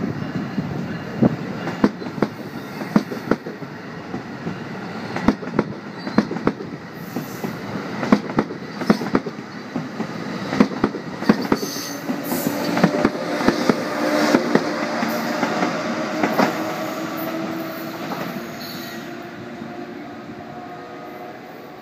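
NJ Transit Multilevel double-deck coaches rolling past, the wheels clacking sharply and irregularly over the rail joints. A steady whine or squeal joins about halfway through, then the sound fades as the train draws away.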